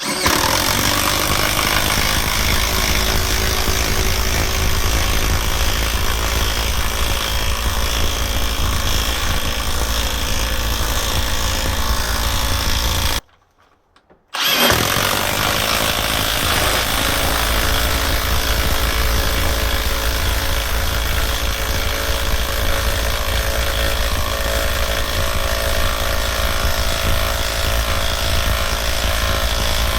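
Compact cordless 1/2-inch impact wrench hammering steadily as it drives a large lag screw into wood. The sound cuts off abruptly about 13 seconds in. After a second or so of silence, a second run of the same kind of steady hammering starts.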